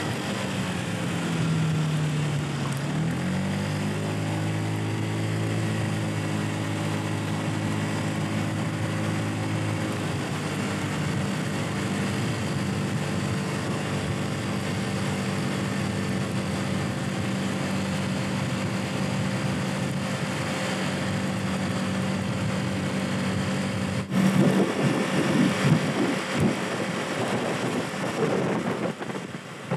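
A 50cc moped engine running under way. Its pitch dips as it slows, picks up again about three seconds in, then holds a steady cruising note. About 24 seconds in, gusty wind buffeting the microphone becomes the loudest sound.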